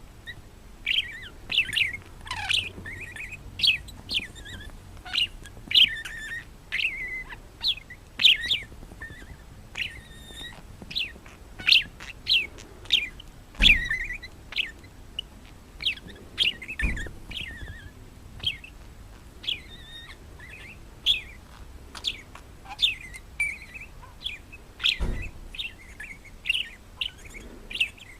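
A bird chirping over and over: short, high, downward-sliding chirps about once or twice a second. A few dull thumps come in between.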